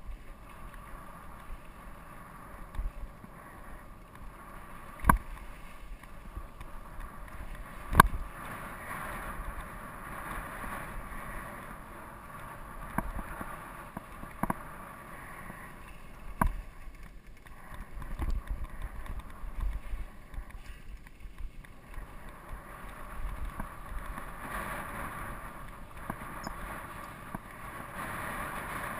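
GT Peace 9'r steel hardtail mountain bike rolling down dry dirt singletrack: tyre noise and a constant rattle of the bike, with several sharp knocks as it hits bumps, the loudest about eight seconds in.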